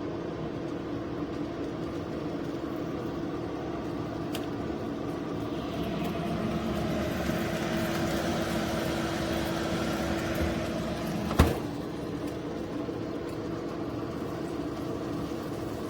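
HYSapientia 24L air fryer oven running: a steady fan hum with a held tone, swelling slightly in the middle, and a single sharp click about eleven seconds in.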